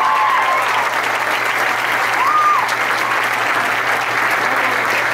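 An audience applauding steadily, a dense even clapping answering a call for a loud round of applause.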